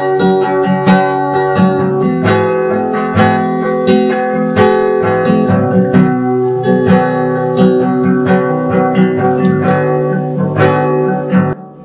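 Background music: acoustic guitar strumming and picking, cutting off abruptly just before the end.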